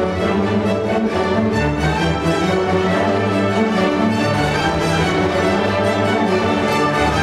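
Symphony orchestra playing, with the violins bowing quick notes over the lower strings.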